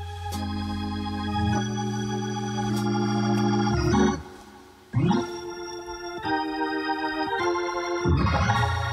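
Background music of sustained, held chords that change every second or so. It fades out about four seconds in and comes back a second later.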